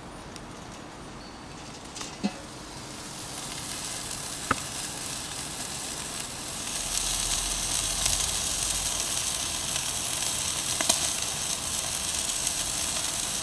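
Steaks, bratwurst and shrimp and chicken skewers sizzling over hot coals on a Weber kettle grill. The hiss builds a few seconds in and grows louder after about six seconds, with a few sharp pops of fat.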